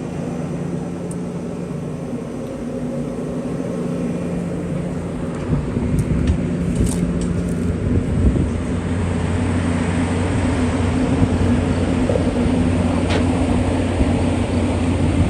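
Steady engine drone with a low hum, getting louder about five seconds in, when a deeper hum comes in.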